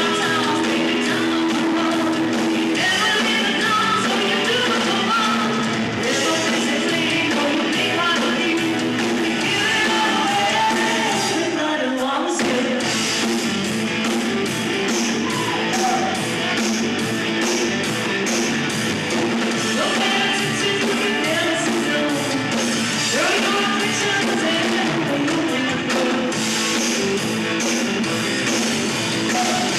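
A rock band playing live: electric guitars and drums with a singing voice, continuous and loud.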